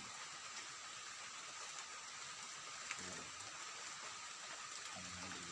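Steady forest ambience: an even hiss with a constant high-pitched drone running through it.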